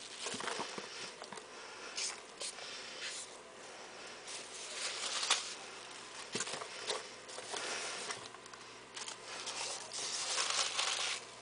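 Hands rummaging through foam packing peanuts in a cardboard box: irregular rustling and light clattering as the peanuts shift and rub against each other and the cardboard.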